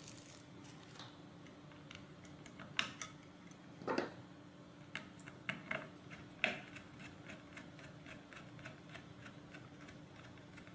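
Small screwdriver turning a machine screw through an Arduino Uno board into a chassis standoff: light clicks and taps, a few louder ones in the first half, then a fast run of small even ticks as the screw is driven.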